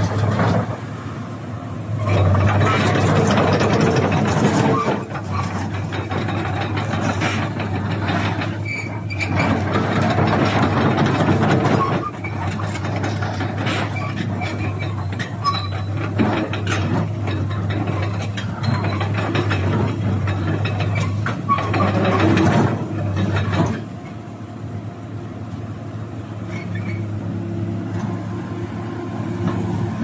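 Komatsu PC220-8 hydraulic excavator's diesel engine running under hydraulic load as the boom and bucket push the machine's tracks up off the ground, swelling louder in several long stretches. It eases to a quieter, steady run about three-quarters of the way in, as the machine settles back level.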